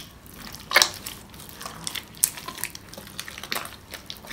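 Hands kneading and squeezing wet, sticky slime in a glass bowl: irregular squelches and sticky pops, the loudest about a second in. The slime is still being activated, with the activator being worked in by hand.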